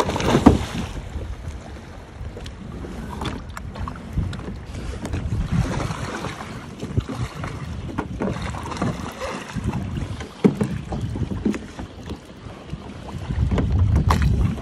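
Water splashing and sloshing as a capsized plastic sit-on-top fishing kayak is rolled upright, with a loud slap of the hull right at the start, then scattered knocks and splashes as a person in a drysuit hauls himself back aboard. Wind buffets the microphone, heaviest near the end.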